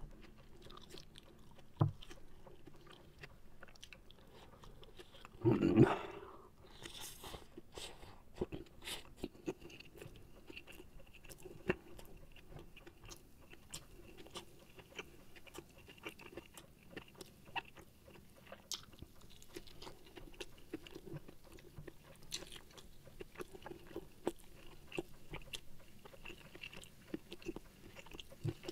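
Close-up chewing of rice and side dishes: soft wet mouth clicks and smacks, with one louder burst about six seconds in.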